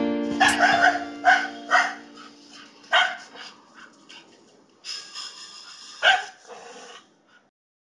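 A dog barking, a series of separate barks spread over several seconds, over the fading end of a held piano chord.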